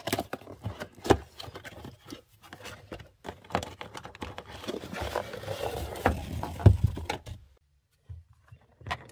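Cardboard box being handled and opened and a plastic 12 V oil extraction pump lifted out of it: rustling and scraping of cardboard and packaging with scattered knocks, one loud knock about two-thirds of the way through, then quiet.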